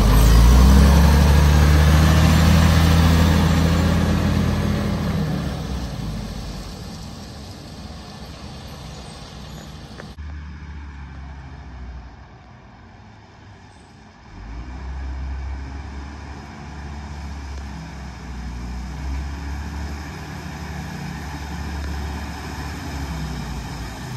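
Diesel engine of a 1999 Volvo Amrep side-loader garbage truck pulling away, loud at first and fading over about five seconds. The engine is then heard more faintly, rising again about fourteen seconds in as the truck drives back toward the listener.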